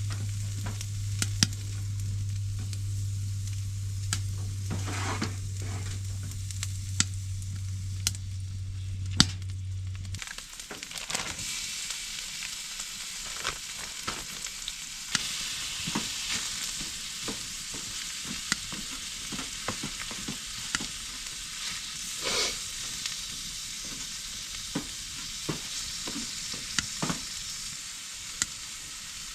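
Food sizzling and frying in a pan, with a steady hiss and frequent small pops and clicks. A low steady hum runs beneath it and stops abruptly about ten seconds in.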